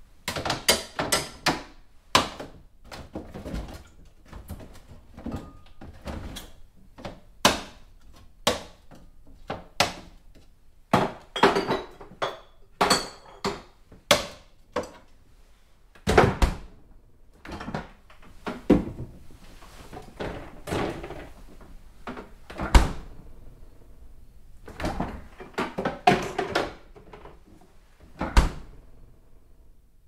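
Someone rummaging through a refrigerator, shifting things around: irregular knocks, clatters and short rustles, with a few heavier thumps, the loudest about two-thirds of the way through.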